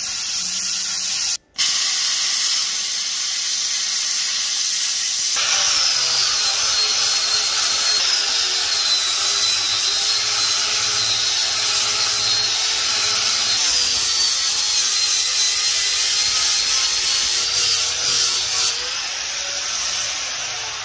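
Electric angle grinder grinding leftover bracket metal off a steel rear axle housing tube. Its motor whine dips and recovers over and over as the disc is pressed into the steel.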